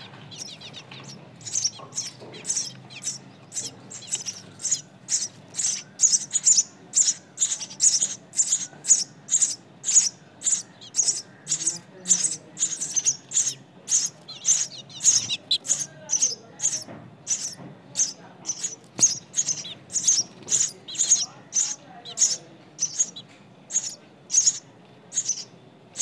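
Nestling songbirds giving short, high-pitched begging calls in a rapid even series of about two calls a second, starting about two seconds in.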